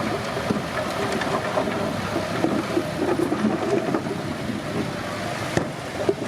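Komatsu D31P bulldozer at work: its diesel engine running steadily under the clatter of its steel tracks, with scattered sharp clanks.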